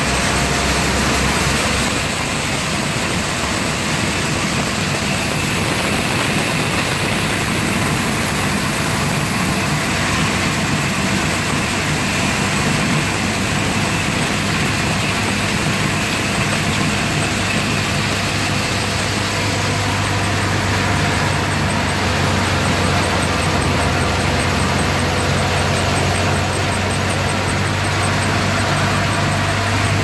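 Reinforce soybean thresher running steadily under load while threshing soybeans: a constant, even machine drone with a low engine hum beneath it.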